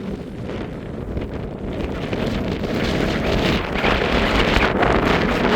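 Strong wind buffeting the microphone in gusts, growing louder about halfway through.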